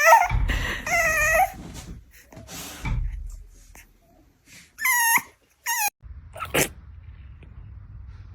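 A dog whimpering in short, high, wavering cries: two near the start and two more about five seconds in, with a few brief rustles and a sharp click in between.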